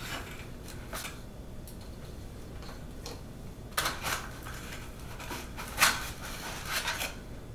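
Hands taking small parts out of a cardboard accessory box and its packaging: a few short rustles and clicks, the loudest about four and six seconds in.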